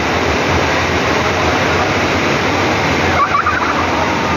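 Steady, loud rush of water from a surf-simulator wave machine, a sheet of pumped water pouring up the sloped ride surface.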